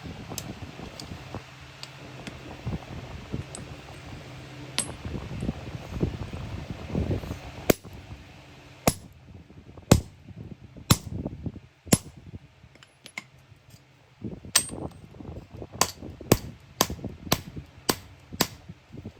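Sharp metal-on-metal strikes, like a hammer hitting iron, about one a second and coming a little faster near the end, after a stretch of low hum and light irregular knocking.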